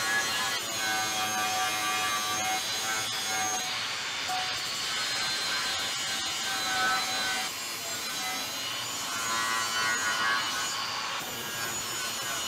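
Angle grinder grinding steel square hollow section, a steady harsh grinding with a whine that shifts as the disc bears on and eases off the metal.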